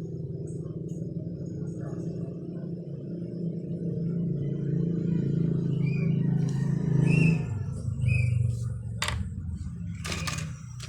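Yamaha XTZ 125's single-cylinder engine running, its level swelling up over the first seven seconds and then easing off, with a couple of sharp clicks near the end.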